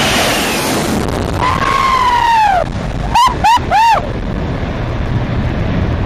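Loud jet noise from a Boeing 747's four engines at takeoff power as it passes low overhead and climbs away. Over it a voice whoops, one long rising-and-falling call about a second and a half in, then three short whoops about three seconds in.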